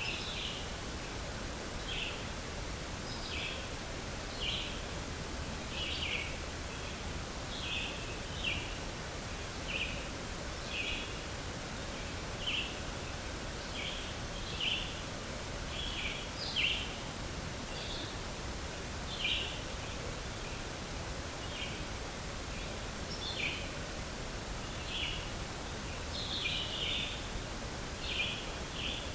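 Short, sharp, high-pitched sounds repeating unevenly about once a second, over a steady outdoor background hiss.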